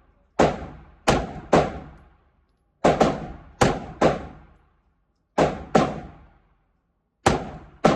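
Glock pistol fired repeatedly: about a dozen sharp shots in quick groups of two or three, each ringing off briefly, with short pauses between groups.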